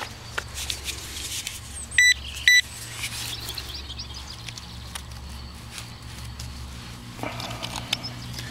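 Handheld metal-detecting pinpointer probe giving two short, high beeps about half a second apart, about two seconds in: it has found a metal target in the dug clump of soil. Light scratching of the probe through crumbly earth around them.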